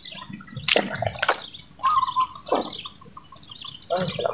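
A small hooked fish splashing and thrashing at the water surface as it is reeled in and lifted out on the line, with two sharp splashes about a second in. Birds chirp in the background.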